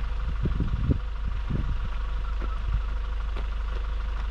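Toyota Hilux engine idling steadily while the truck stands parked, with a few dull low bumps in the first couple of seconds.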